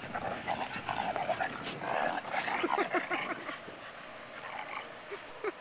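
Dogs vocalizing during rough play, a run of short play noises that is busiest in the first three seconds and quieter after.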